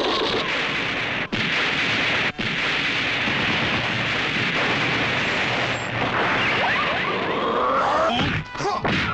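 Explosion sound effects: a dense, loud rush of blast noise that cuts out briefly twice, about one and two seconds in, with whooshing sounds sweeping up and down near the end.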